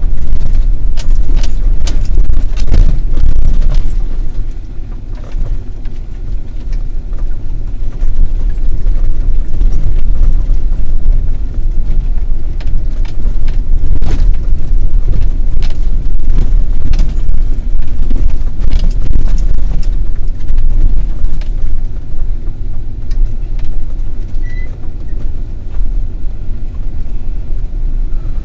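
Off-road vehicle driving over a rough dirt track: a loud, steady low rumble of road and engine noise, broken by frequent knocks and rattles as it jolts over bumps.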